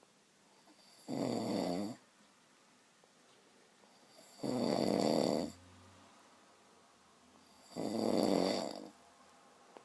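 Someone asleep and snoring: three loud snores, each about a second long, roughly three seconds apart.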